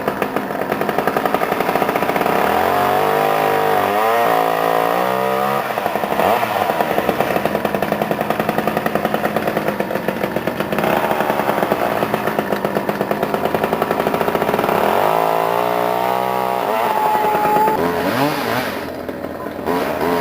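Gas chainsaw engine running throughout, its pitch rising and falling as it is revved, with two spells of throttle changes. It drops back near the end.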